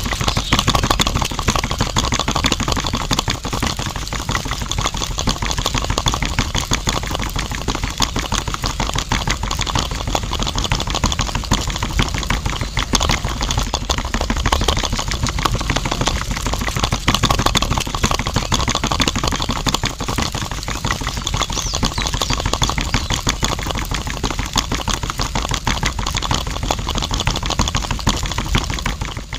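Small electric motor of a toy-scale DIY grape juice machine running steadily with a fast, buzzing rattle as it spins the drum; it cuts off at the very end.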